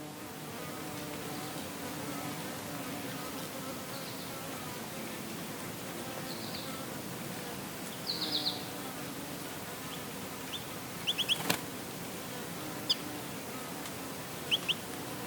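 Bees buzzing steadily around sunflowers, the hum wavering in pitch as they fly. Short high bird chirps come in every few seconds, with quick double chirps in the second half. A single sharp click sounds about two-thirds of the way through.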